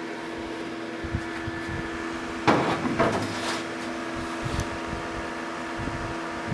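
Steady hum of the small cooling fan on a cylinder-barrel heat test jig, with a couple of short clattering knocks from handling about halfway through.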